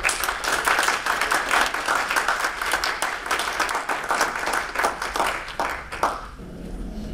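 Audience applauding, starting abruptly and dying away about six seconds in.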